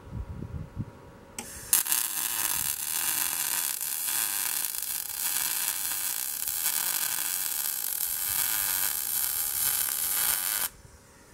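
Wire-feed (MIG) welder running a bead on steel square tubing: a few low bumps, then the arc's steady crackling hiss starts about a second and a half in, runs for about nine seconds and cuts off suddenly near the end.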